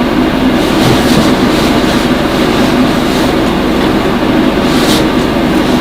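Loud, steady rumbling rattle of moving through a supermarket aisle, with a few faint clicks.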